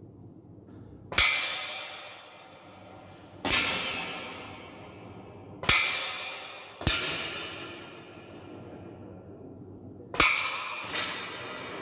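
A Weihrauch HW100 .177 pre-charged pneumatic air rifle fires six shots, each a sharp crack followed by a ringing tail that fades over about a second. The shots come irregularly, with two close pairs about a second apart.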